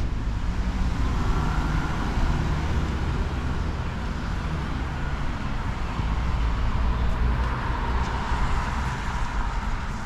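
Road traffic: cars passing on the street, a steady hiss of tyre and engine noise over a low rumble, swelling about a second in and again near the end.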